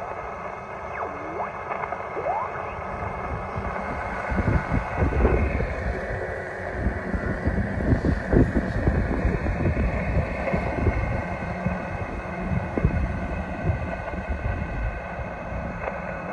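Hiss and static from a shortwave radio receiver on a noisy band, with a weak signal buried in it, rising and falling in strength and getting stronger about four seconds in.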